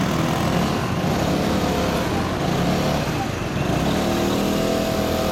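Motorcycle engine running while riding through city traffic, with the noise of surrounding cars. Its pitch rises in the last second or so as it picks up speed.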